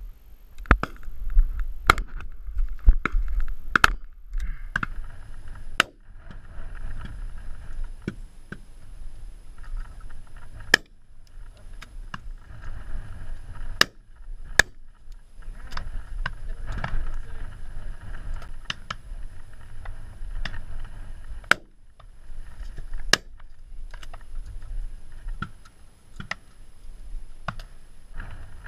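Wind rumbling on a cased GoPro's microphone, with a dozen or so sharp cracks scattered through: shotguns fired at driven grouse, muffled by the camera housing, mixed with knocks from the gun being handled.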